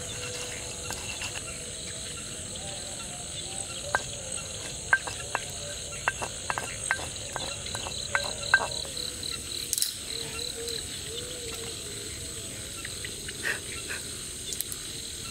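Crickets and other night insects chirring steadily. From about 4 to 9 seconds in, a string of sharp knocks and taps comes from a pestle grinding and striking chilies in a mortar.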